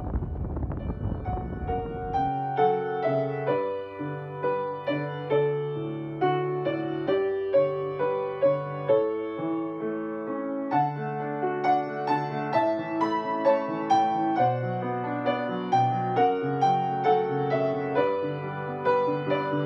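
Solo piano music, a slow melody over sustained chords. For the first two seconds a low rushing noise lies under the piano, then cuts off.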